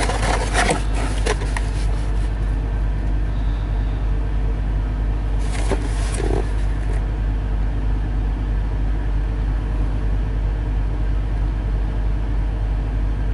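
Steady low rumble of an idling diesel truck engine heard from inside the cab, with the rustle and scrape of a cardboard box being handled near the start and again about six seconds in.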